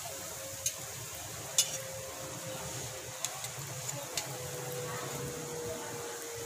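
Breaded sweet potato donuts frying in hot oil in a steel wok: a steady sizzle with several sharp pops spread through it.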